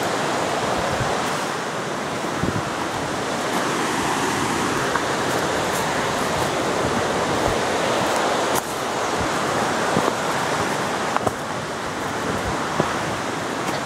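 Footsteps crunching on dry leaf litter and twigs along a forest trail: scattered short clicks and snaps over a steady rushing noise.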